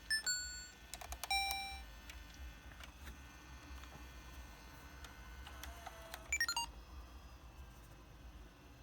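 Sony Handycam DCR-TRV270 camcorder giving short electronic confirmation beeps as it is operated. Two beeps come in the first two seconds, then a quick run of short stepped beeps about six seconds in, over a faint steady low hum.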